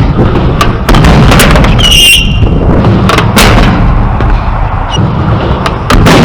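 Skateboard rolling on concrete: a loud, continuous wheel rumble broken by sharp clacks and slaps of the board. A brief high squeal comes about two seconds in and again near the end.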